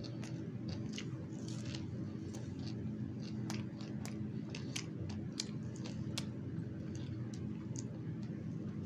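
A person chewing and biting into a sub sandwich, with many irregular small wet clicks and crunches. A steady low hum runs underneath.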